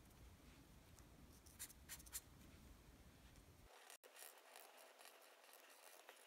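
Faint scratching of a felt-tip marker drawing strokes on paper.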